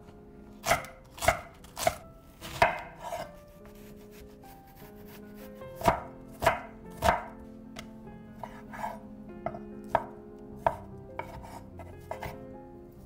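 Chef's knife chopping on an end-grain wooden cutting board, cutting green onion, then onion and bacon: a few loud separate strokes, then lighter, quicker cuts in the second half.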